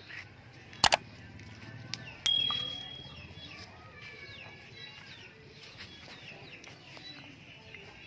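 A sharp double click, then about a second later a single bright metallic ding that rings out for about half a second. Small birds chirp faintly in the background.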